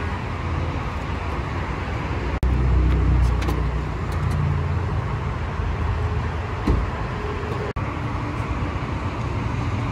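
Steady road-traffic and car noise with a low rumble, which grows louder for a couple of seconds after an abrupt cut about a quarter of the way in. A brief thump comes about two-thirds of the way through.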